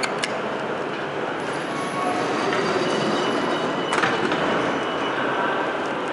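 A couple of sharp clicks as the elevator call button is pressed, over a loud, steady rumble. A sharp knock comes about four seconds in.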